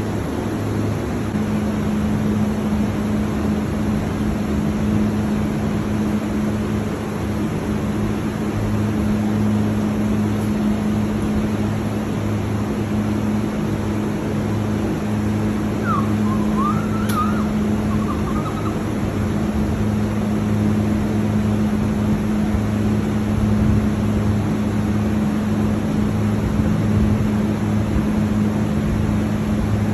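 A steady low machine hum with a constant rushing noise, like a motor or ventilation running. A few brief, high chirping sounds come about two-thirds of the way through.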